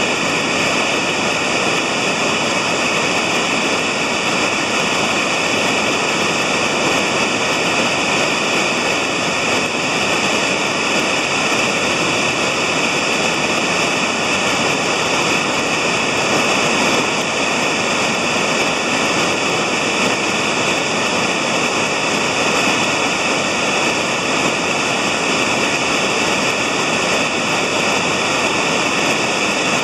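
Whitewater pouring over a rocky drop in a river running high, a loud, steady, unbroken rush of churning water.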